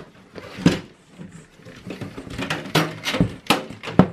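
Plastic front bezel of a Lenovo ThinkCentre A58e desktop being pried off its metal chassis: a run of irregular clicks, creaks and knocks as the retaining clips let go, with a few louder knocks in the last second or so.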